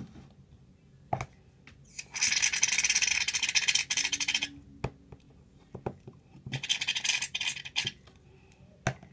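Shaving-foam aerosol can spraying in two bursts, a crackly sputtering hiss, the second burst shorter; the can has only a little foam left. A few light knocks in between.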